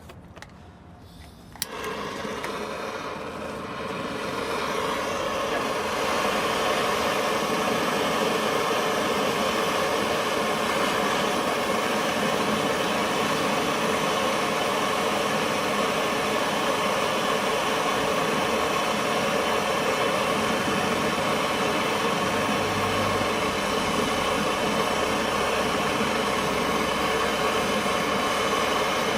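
Gas blowtorch lit with a click about two seconds in, then the steady hiss of its flame, building up over the next few seconds and then holding even, as it heats a seized brake caliper bleed screw.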